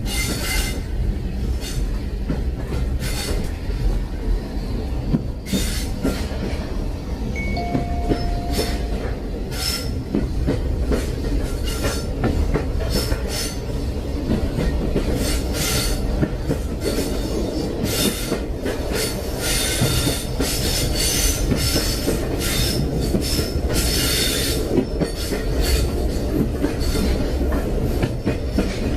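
Train rolling along the rails: a steady low rumble with frequent short, high-pitched metallic squeals and clatter from the wheels on the track.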